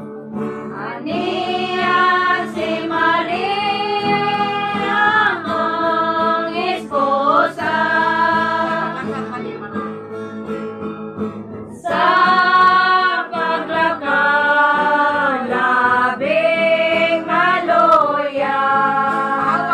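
A group of women singing together in long held notes, accompanied by a guitar. The singing breaks off briefly about twelve seconds in, then resumes louder.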